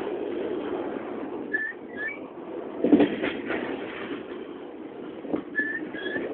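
Intermodal freight train rolling past close by: a steady rumble of steel wheels on the rails, with sharp clanks as the wheel trucks go by, about three seconds in and again near the end. Short high chirps come twice, in pairs.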